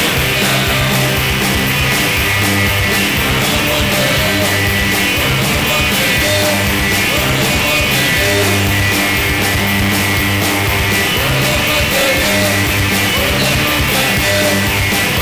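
Loud rock song, an original band recording, with bass and a steady drum beat.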